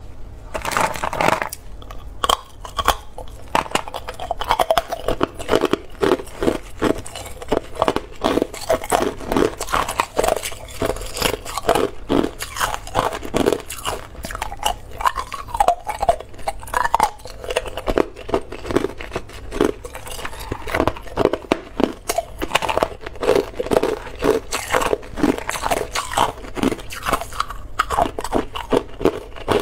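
A person biting and chewing hard, clear ice cubes: irregular crunches and cracks as the ice breaks between the teeth, coming in quick runs throughout.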